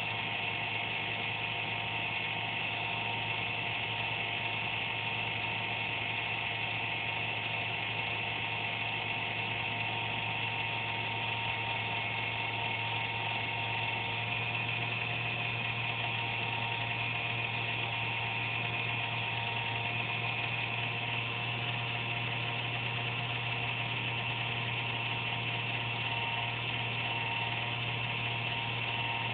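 Desktop computer giving off an inconsistent buzz: a low hum with a higher whine over it, a fault noise it makes at random once or twice a day while running normally, which the owner suspects comes from a fan. The low hum grows a little stronger about halfway through.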